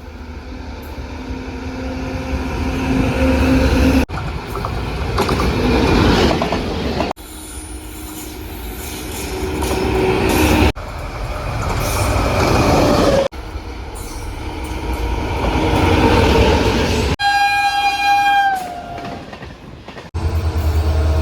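A series of short clips of trains passing at speed, each getting louder as the train nears, cut one after another. A locomotive horn sounds one sustained blast, dipping in pitch as it ends, a few seconds before the end.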